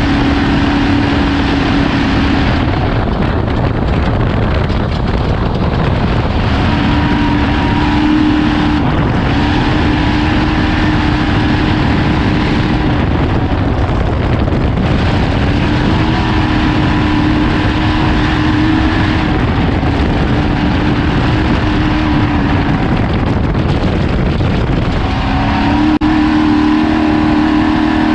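Ford Ranger desert race truck running hard off road: a constant loud rushing noise, with the engine's note rising out of it in stretches and falling back, climbing a little in pitch near the end.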